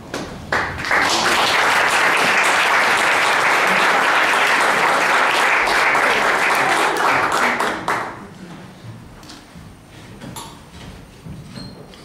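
Audience applauding, a dense patter of clapping that starts about half a second in and dies away about eight seconds in, leaving only a few faint knocks.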